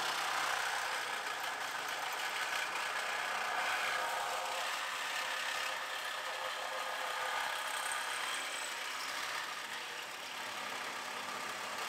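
Reciprocating saw running steadily, its blade cutting through the sheet steel of a car's front-end structure until it cuts through.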